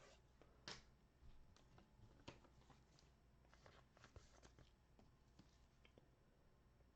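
Near silence with faint, scattered clicks of trading cards being handled.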